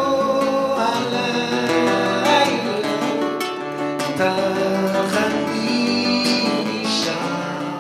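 Acoustic guitar strummed, with quick picked runs between sung lines of a song; a singing voice comes in places.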